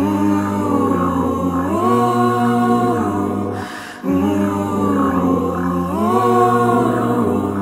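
A cappella music: several layered voices sing wordless gliding harmonies over a low held note. The phrase repeats about every four seconds, with a brief breath between repeats.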